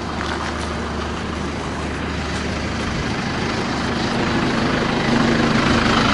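Diesel engine of a Komatsu backhoe loader running steadily, growing louder as it is passed at close range, with a steady hum coming in about five seconds in.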